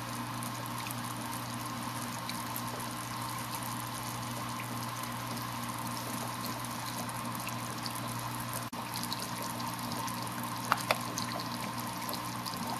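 HHO electrolysis dry cell fizzing steadily as it makes gas, drawing about 16 amps from a PWM controller, with a steady hum from the cell under the pulsed current. Two light clicks near the end.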